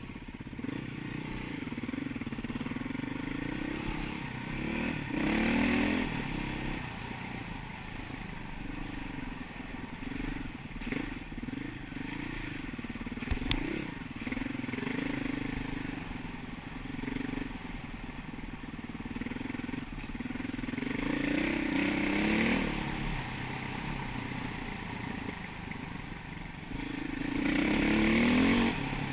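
KTM 525 EXC enduro motorcycle's single-cylinder four-stroke engine under way on a dirt trail, its pitch rising and falling with the throttle. It revs up loudly about five seconds in, again about twenty-two seconds in, and loudest near the end.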